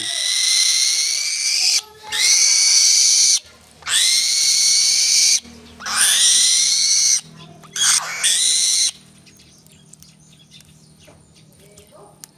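Bird of prey screeching: six harsh, hissing screeches, each about a second to a second and a half long, come one after another for the first nine seconds. The screeches then stop, leaving only faint background.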